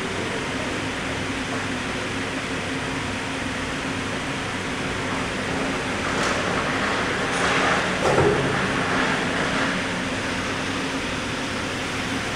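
A CNC router's 9 kW spindle running with a steady hum as it cuts MDF. From about six to ten seconds in, the cutting noise grows louder and harsher, with two sharp clicks.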